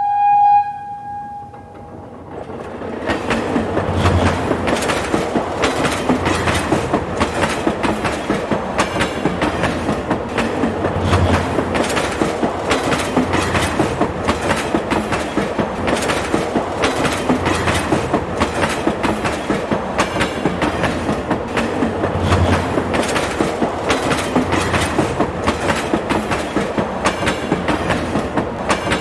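A train sounds one short, single-pitched horn blast, then its wheels clatter steadily over the rail joints: a fast, continuous clickety-clack of a train in motion.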